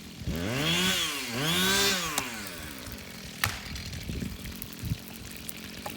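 A small engine revved twice in quick succession, its pitch rising and falling each time, then a single sharp click.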